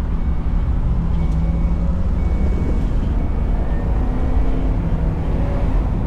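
Cabin noise of a 2010 Ford E250 van's 4.6-litre V8 driving at road speed: a steady low rumble of engine and road noise.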